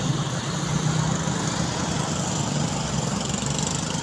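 Road traffic with a vehicle engine running steadily close by: a low, even engine hum over constant road noise.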